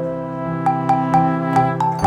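Background music: an instrumental tune of short struck, bell-like notes over held chords.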